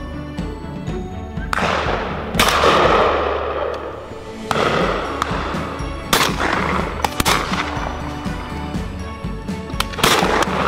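Several shotgun shots at irregular intervals, each sharp crack followed by a rolling echo, with background music underneath.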